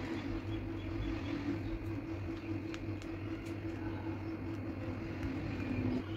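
A steady, low background hum, with a few faint clicks.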